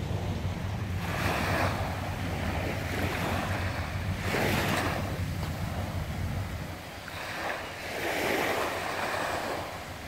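Small waves washing up onto a sandy beach, three surges a few seconds apart, with wind rumbling on the microphone.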